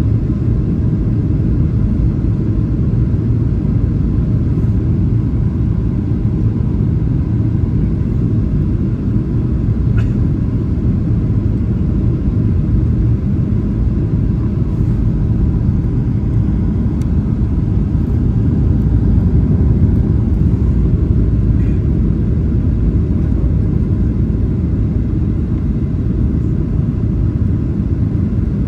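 Steady low rumble of engine and airflow noise inside the cabin of a Boeing 737-900 on descent, heard from a window seat over the wing.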